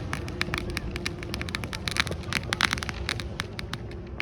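Fireworks crackling: a rapid, irregular string of sharp pops and crackles, thickest about two seconds in.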